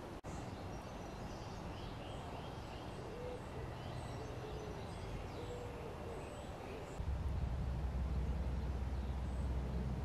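Outdoor ambience: faint, scattered birdsong chirps over a steady hiss, with a low rumble that gets louder about seven seconds in.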